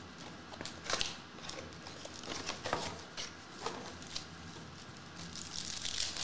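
Crinkling and crackling of crumpled clear plastic box wrap and foil trading-card packs being handled, with a foil pack being torn open near the end, where the crackle is densest.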